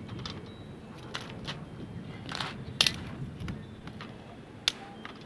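Small kindling fire crackling: a few irregular sharp snaps and pops over a steady low rumble.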